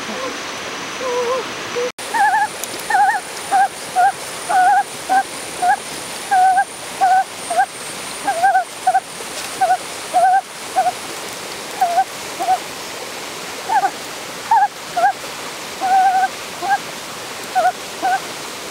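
An animal calling over a steady hiss, with short, wavering pitched notes about twice a second that start after an abrupt cut about two seconds in.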